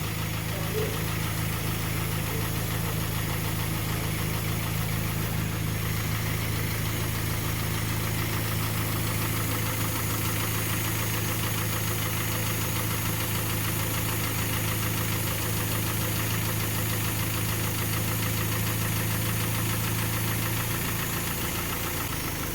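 Kia Sportage 3 engine idling steadily with a dull metallic knock running through it, before its oil change and service at 122,000 km. The idle note shifts near the end.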